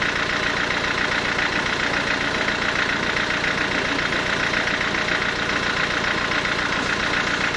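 Sawmill machinery running steadily, an engine-like drone with a fast even beat and no change in level.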